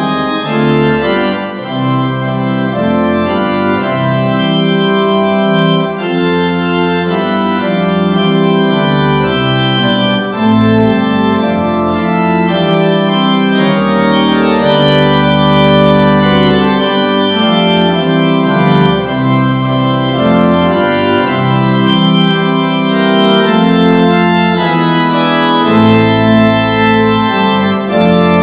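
Organ music: slow, held chords over a bass line that changes every few seconds.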